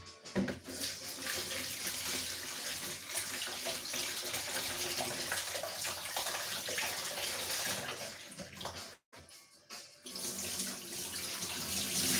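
Water running from a tap in a steady rush, cut off abruptly about nine seconds in and turned back on a second later.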